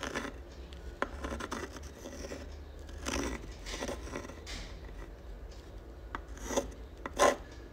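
Uni-ball Fine pen tip scratching across textured sketch paper in uneven strokes and loops as a signature is written.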